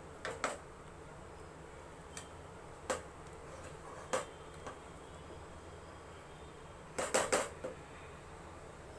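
Stirring utensil knocking and scraping against a stainless steel pan of thick, finished halva: scattered single knocks, then a quick cluster of them about seven seconds in, over a low steady hum.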